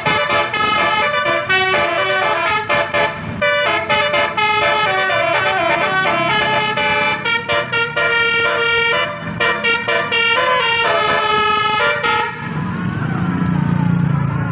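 Basuri multi-tone telolet bus horn playing a fast tune of stepped notes, cutting off about twelve seconds in and leaving a low rumble.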